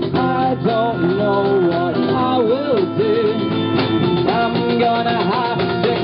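Live band playing a pop-rock song: strummed acoustic guitar and electric guitar over a steady cajón beat, with a wavering melody line above them.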